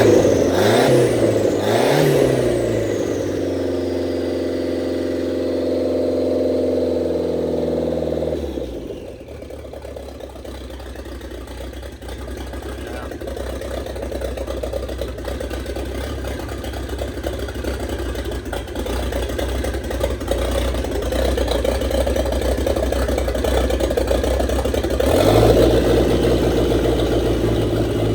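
Turbocharged 2.3-litre four-cylinder engine of a 1927 Ford roadster running. Two quick revs come at the start, with a high whistle falling away after them. It then holds a fast idle that drops to a lower, steady idle about nine seconds in, and steps up again near the end.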